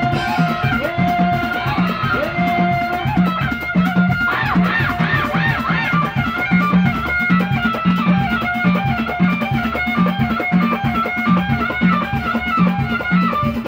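Moroccan folk band playing live: an upright-held violin carries a wavering melody, shaking through a fast vibrato-like run about four seconds in, over a steady hand-drum beat of about two strokes a second.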